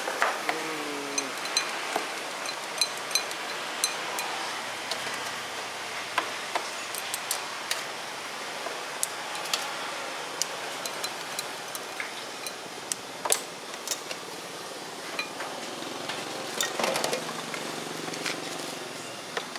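Scattered clinks and clacks of cooking utensils against ceramic noodle bowls and metal pot lids at a street-food cart, over a steady hum of road traffic.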